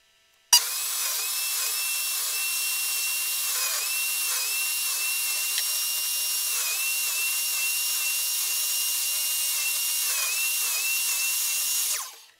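Electric miter saw running with a steady high whine as it crosscuts small plywood pieces. It starts suddenly about half a second in, its pitch dips briefly several times as the blade bites into the wood, and it stops shortly before the end.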